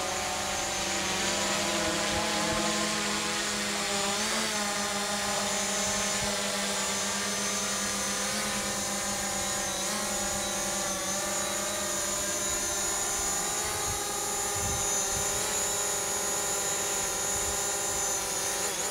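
DJI Mavic Pro quadcopter drone hovering close by, its propellers giving a steady whine of several tones that wavers slightly in pitch now and then as the drone holds position. Near the end it is taken in by hand with its motors still running.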